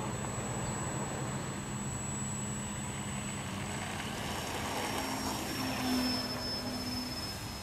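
ParkZone F4U Corsair electric RC plane taking off, its motor and propeller giving a steady high whine. The whine drops in pitch about four seconds in, and the sound is loudest near six seconds as the plane climbs past.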